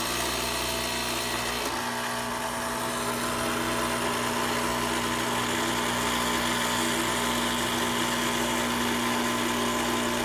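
Rocket heat-exchanger espresso machine's pump running steadily with water pushed through the group head, purging the heat exchanger. The sound is a constant machine hum that shifts slightly about two seconds in.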